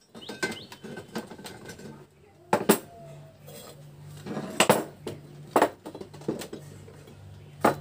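Irregular sharp metallic clinks and knocks, about eight of them, from a steel threaded-rod puller and tools being handled while pressing the shaft out of an e-rickshaw motor's magnet rotor.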